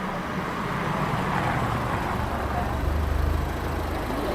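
A road vehicle passing on a town street, its low engine rumble growing louder about three seconds in, over steady street noise.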